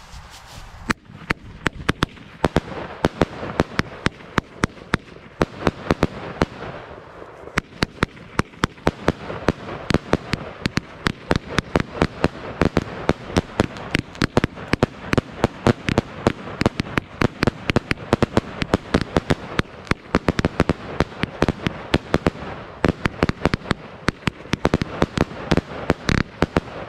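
J-Fireworks Golden Dream 45-shot, 25 mm fireworks battery firing, starting about a second in: a rapid string of sharp shot bangs, several a second, over a constant rushing hiss.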